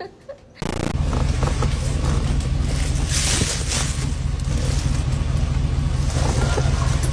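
A steady low rumble with hiss above it, starting abruptly just under a second in and cutting off suddenly near the end.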